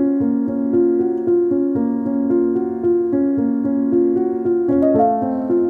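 Background music played on a keyboard, a steady run of notes, with the harmony shifting about five seconds in.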